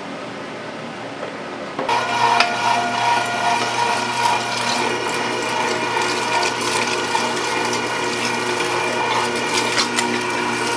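A steady background hum, then about two seconds in an electric machine switches on and runs steadily with a low hum and a whine, mixed with irregular clicking and crackling.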